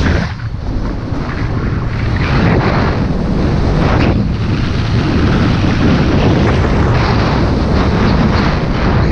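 Wind buffeting the microphone at speed during a fast downhill ski run, a loud rushing rumble mixed with the hiss of sliding over packed snow, easing briefly twice.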